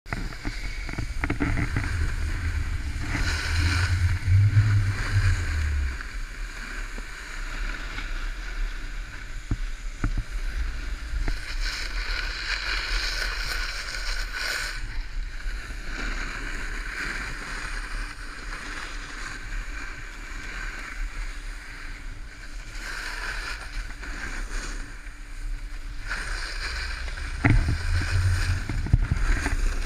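Wind buffeting an action camera's microphone during a downhill ski run, over the steady hiss and scrape of snow sliding under the rider. The low wind rumble grows heavier about four seconds in and again near the end.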